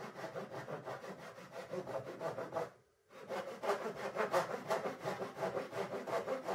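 Hand saw cutting a softwood board in a saw guide, with rapid back-and-forth strokes. The strokes stop for a moment about three seconds in, then start again.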